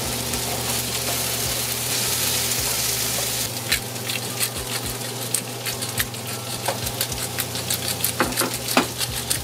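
Doenjang stew boiling in an earthenware ttukbaegi pot on a gas burner, sizzling and bubbling. A steady hiss gives way after about three seconds to sharp crackling pops, over a low steady hum.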